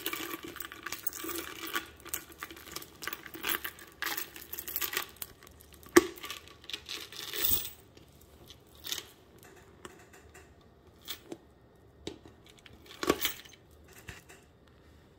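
Handling of a clear PVC crossbody bag: its metal chain strap clinks and the stiff plastic crinkles. The clinks and crinkles are busiest in the first half, with a sharp click about six seconds in and a few scattered clicks later.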